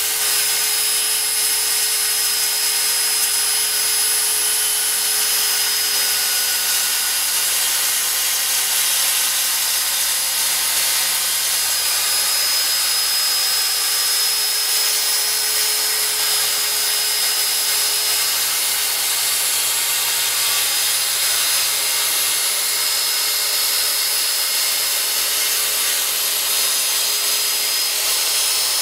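Corded circular saw running steadily with a constant whine as it cuts through the van's wooden floor, the blade set shallow so it cuts only the wood and not the metal beneath.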